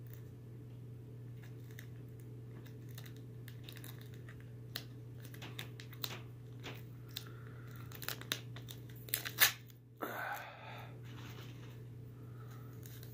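Wrapper of a trading-card pack being torn and crinkled open by hand: a run of sharp crackles that grows busier, the loudest crack about nine seconds in, then a brief rustle.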